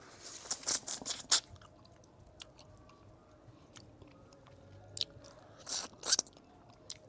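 A person chewing the soft pulp of a ripe nyenya (Momordica foetida) fruit, with wet mouth sounds in a cluster during the first second and a half and a few more about five to six seconds in.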